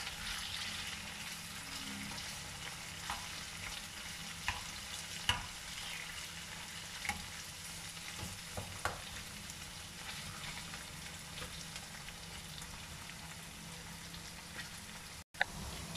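Chicken pieces sizzling steadily as they fry in hot oil in a nonstick pan, stirred with a metal slotted turner that scrapes and clicks against the pan now and then. The sound drops out for a moment near the end.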